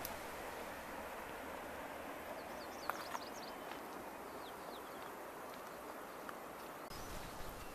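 Outdoor mountain ambience: a steady rushing hiss, with a few short, high bird chirps about three seconds in.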